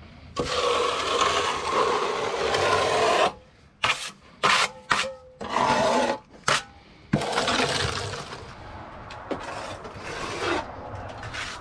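Hand tool scraping and rubbing across the insulated wall surface: one long stroke, then a run of short strokes, then softer scraping.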